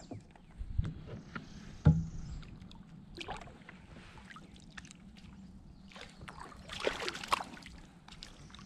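Scattered knocks and thumps of handling in a small fishing boat, the loudest about two seconds in, then a short splash of water around seven seconds in, over a faint steady hum.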